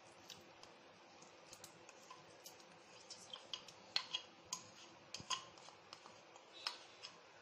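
Scattered light clicks and taps, irregular and a second or so apart, as chopped tender coconut is tipped from a plastic tub into a glass bowl of whipped cream mixture. A faint steady hum lies underneath.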